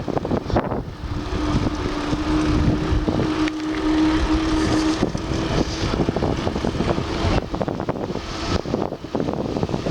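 Road and traffic noise during a car ride, with strong wind buffeting on the microphone. A steady low hum comes in about a second in and fades out about five seconds later.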